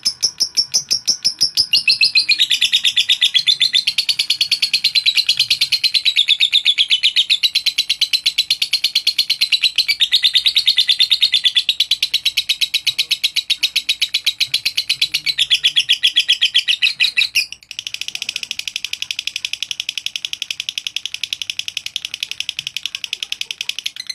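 Lovebird chattering in a long, very fast trill of high notes (the 'ngekek' song), breaking off briefly near the end and then going on a little quieter.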